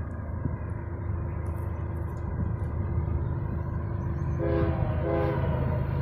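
Canadian Pacific GE ES44AC diesel locomotive approaching with a low, steady rumble. About four and a half seconds in, its multi-chime air horn sounds in short blasts.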